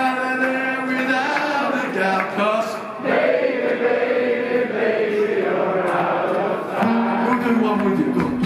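Live band with acoustic guitars, drums, upright bass and keyboards playing, with voices singing long held notes over it.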